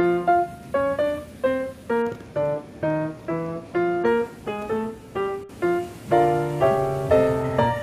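Background music: a piano playing a light melody of short notes, about two to three a second, with fuller chords from about six seconds in.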